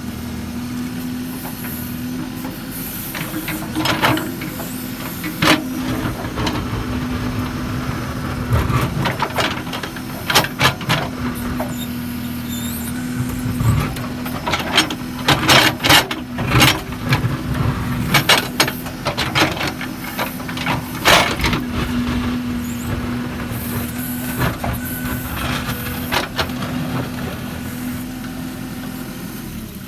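Case 770 backhoe loader's diesel engine running steadily, with a series of sharp knocks and clanks, thickest around the middle.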